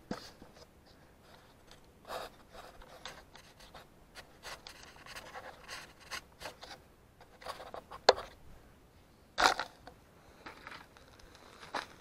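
Scattered scraping, rubbing and clicking on the camera body as it is moved and handled, with a sharp click about eight seconds in and a louder scrape about a second and a half later.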